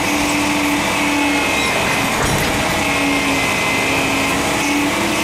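Roll-off truck's engine and hydraulic hoist running steadily as it tilts a large recycling container, a loud mechanical drone with a hum that wavers slightly in pitch.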